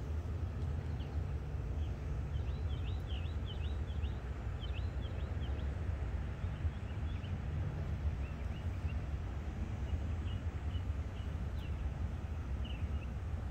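Small birds chirping in quick, rapid runs of short high notes, thinning to scattered chirps partway through, over a steady low rumble.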